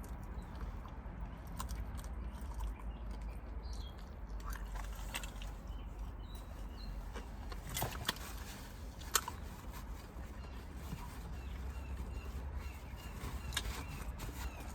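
A person chewing food, with scattered sharp clicks (two stand out about 8 and 9 seconds in), over a steady low hum.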